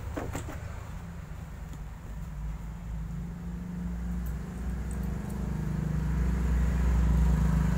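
Low, steady engine rumble of a motor vehicle running nearby, growing louder over the second half. A few small clicks near the start, from the zipper slider and suitcase being handled.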